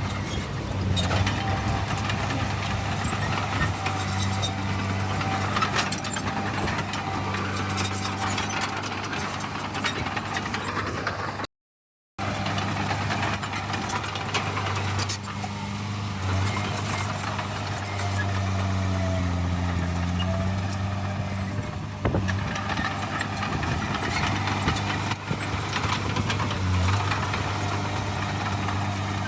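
Heavy diesel earthmoving machinery running steadily, its engine note shifting a little in pitch now and then, with scattered short clicks and rattles. The sound cuts out completely for about half a second, about eleven seconds in.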